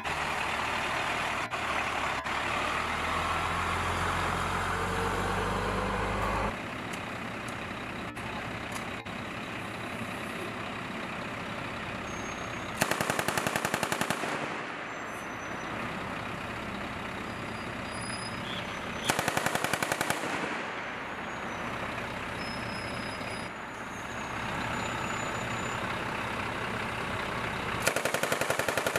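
A military truck's diesel engine running close by, then three bursts of M2A1 .50-calibre heavy machine gun fire, each about a second and a half of rapid shots, several seconds apart.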